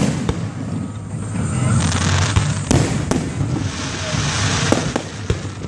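Aerial fireworks shells bursting overhead: a series of sharp bangs, the loudest about two and a half seconds in, with a crackling hiss from the bursts around four seconds in.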